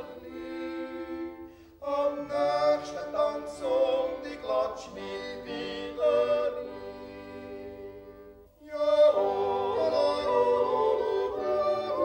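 Music with operatic singing: long held, pitched notes. It almost stops about eight and a half seconds in, then comes back louder.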